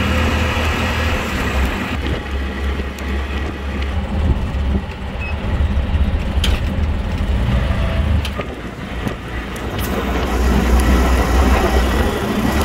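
Ride in an open auto-rickshaw: its engine running with a steady low rumble under wind and road noise coming in through the open sides. The noise dips about eight seconds in and grows louder again a couple of seconds later.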